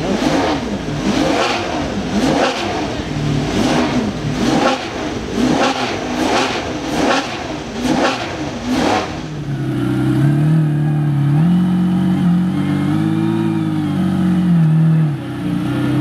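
Italian V12 engine being blipped over and over, a quick sharp rev every half second to a second. About nine and a half seconds in it gives way to another engine running steadily at low revs, its pitch stepping and swelling gently up and down.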